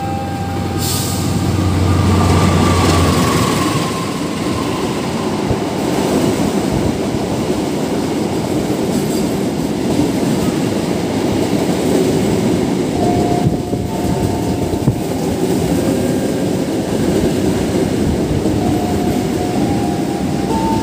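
Electric commuter train (KRL) rolling slowly past along the platform: a steady rumble of wheels and running gear on the rails. A short sharp burst of noise about a second in, and a low hum during the first few seconds.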